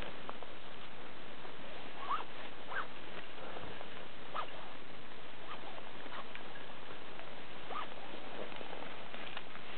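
Faint, irregular clinks and scrapes of carabiners, a rappel device and rope being handled at a climbing anchor, a few at a time, over a steady hiss.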